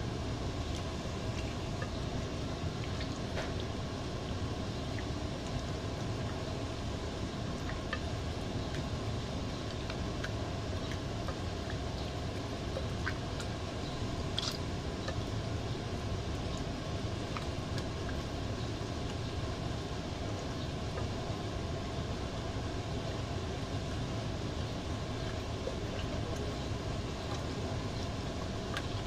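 Steady background rumble, with a few faint wet squelches and clicks from a hand kneading marinade into raw chicken wings.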